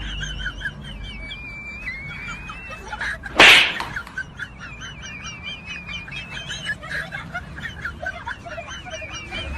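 Birds chirping and warbling continuously. A single loud whoosh cuts across it about three and a half seconds in.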